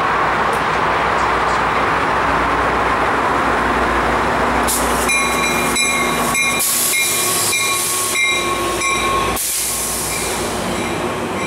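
Trinity Railway Express diesel commuter train arriving at slow speed: the locomotive rumbles as it approaches, then from about five seconds in a high-pitched squeal from the running gear sets in as it slows, broken by irregular clicks as the bilevel coaches roll past.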